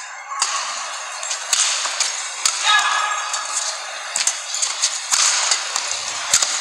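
Badminton rally: sharp racket hits on the shuttlecock, several in a row at uneven intervals of about a second, over a steady arena crowd noise.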